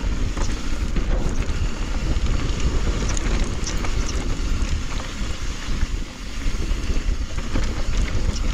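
Wind buffeting the microphone as a mountain bike rolls down a dirt trail: a steady low rumble with a few faint ticks and rattles over it.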